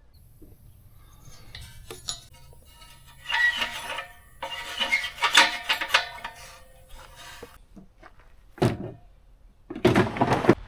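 Metal clinking and rattling as a small propane tank and its hose fittings are handled, in irregular bursts with some ringing.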